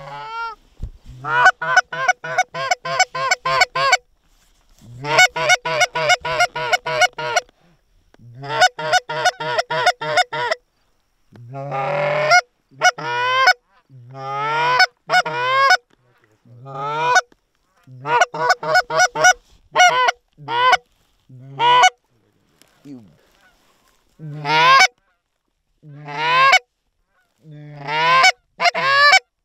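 Canada goose calls blown by hunters: rapid runs of short honks and clucks in bursts of one to three seconds, some notes rising into drawn-out honks, with short gaps between runs.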